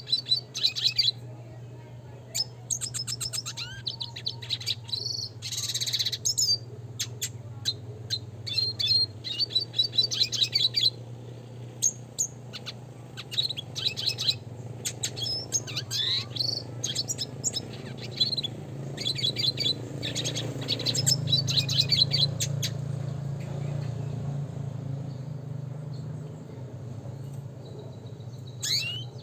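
Red siskin singing: quick bursts of twittering chirps and rolling trills, broken by short pauses. A steady low hum runs underneath.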